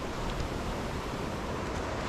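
Steady rushing of a fast mountain river, with wind buffeting the microphone.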